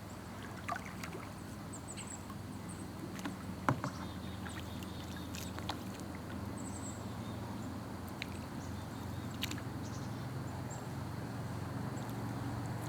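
Kayak paddling: paddle strokes through the water, with a few short light knocks and faint high bird chirps now and then.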